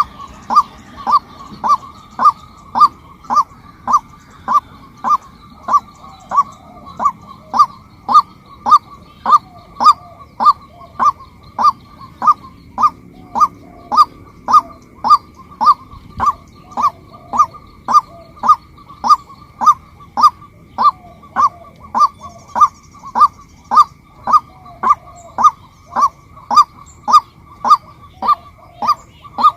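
Female waterhen calling one short note over and over at an even pace, about one and a half calls a second.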